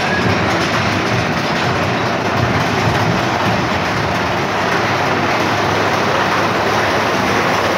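Big Thunder Mountain Railroad mine-train roller coaster running on its track, a steady loud rumble and rattle of the cars.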